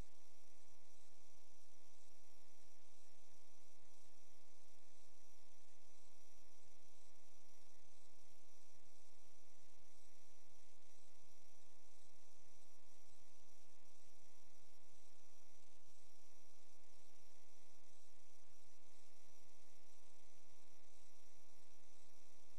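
Steady electrical mains hum with many even overtones and a constant hiss, unchanging throughout. It is the kind of interference picked up on a sewer inspection camera's recording.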